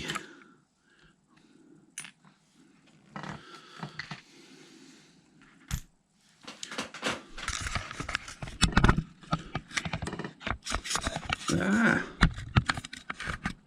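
Hands working on the parts of an RC truck: small clicks, scrapes and rattles of plastic and metal pieces. Sparse and faint at first, then busier and louder from about halfway.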